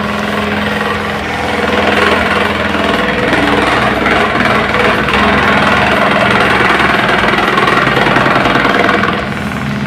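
Electric desk fan spinning a paint-can-lid blade: a steady motor hum, with a loud mechanical rattle that comes in about a second and a half in and eases off shortly before the end.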